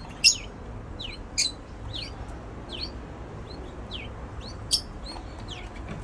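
Caged canaries chirping: a steady run of short, quick falling chirps, about two a second, with three sharper, louder calls among them.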